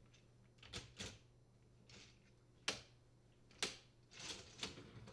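Dishwasher upper rack being seated on its slide rails, with faint clicks and rattles as the rack and its stop clips snap into place: about seven short sharp clicks, spread unevenly.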